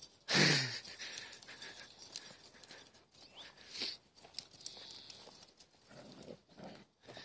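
Kangal shepherd dogs playing and running through grass: one loud short burst near the start, then rustling and uneven padding footfalls.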